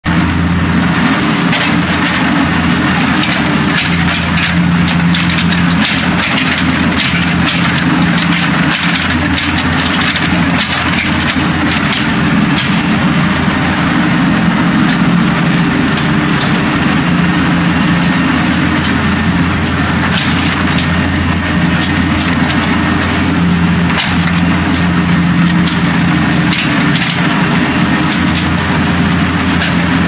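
Case backhoe's diesel engine running steadily, with gravel crunching and clicking as the bucket scrapes through it.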